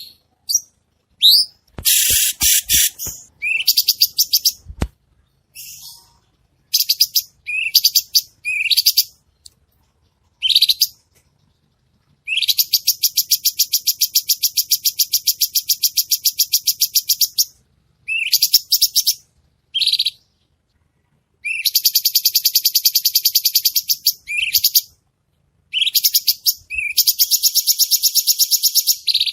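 Cucak cungko songbird singing: short rising chirps alternating with long, rapid trills of sharp repeated notes lasting several seconds each, three such trills in all.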